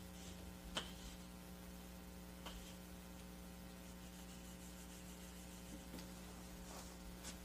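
Low, steady electrical mains hum, with a few faint short clicks scattered through it.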